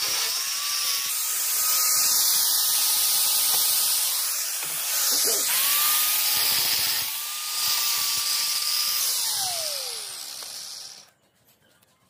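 Handheld electric power tool running under load with a high-pitched motor whine and dense hiss. Its pitch dips and recovers twice in the middle, then it winds down with a falling tone and stops about 11 seconds in.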